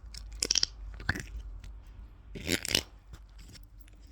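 Slime squished close to the microphone, giving a few short crackly pops: about half a second in, again at one second, and a quick cluster near two and a half seconds.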